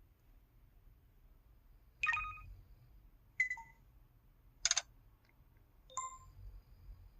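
LG KU6300 mobile phone keypad button sounds: four short key tones, each a brief electronic blip or click and each different in character, about a second and a half apart.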